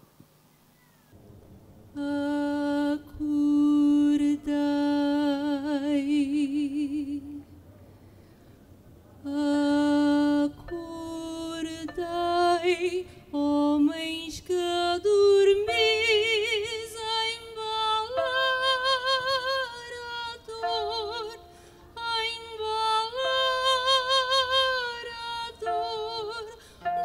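A woman singing solo in long held notes with a wide vibrato. She comes in about two seconds in, breaks off briefly near the eight-second mark, then sings on.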